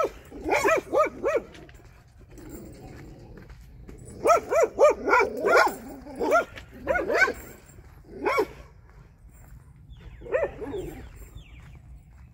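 A dog barking in quick runs: four fast barks about half a second in, a longer flurry around four to six seconds, then single barks thinning out, the last about ten seconds in.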